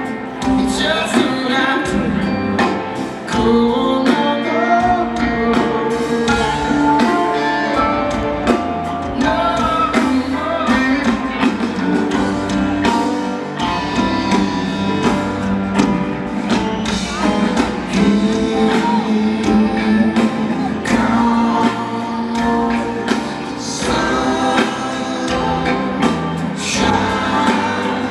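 Live rock band playing a jam with electric guitars, drums and a sung vocal, recorded from the stands of a stadium.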